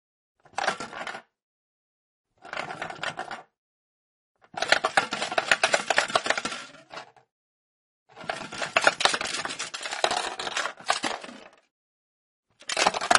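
A small ball rattling and clicking around inside a plastic box as the box is rotated, in bursts separated by short silences: two short bursts, then two longer ones, and another beginning near the end.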